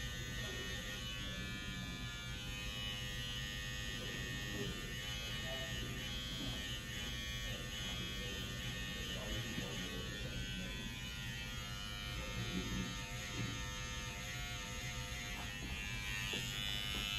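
Electric hair clippers running with a steady buzz during a haircut.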